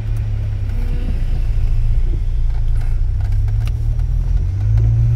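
Car engine and road noise heard from inside the moving car's cabin: a steady low drone whose pitch rises a little near the end.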